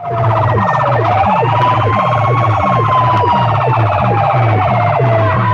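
A DJ sound system's stacked horn loudspeakers playing a loud siren effect over a fast electronic bass beat. The siren rises, then slowly falls in pitch, and starts to rise again near the end.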